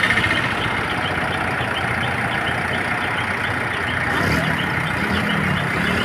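Diesel engine of an ACE backhoe loader running steadily.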